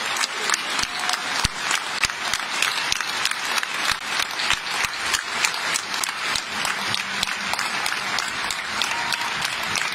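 Large concert audience applauding steadily, a dense patter of many hands clapping.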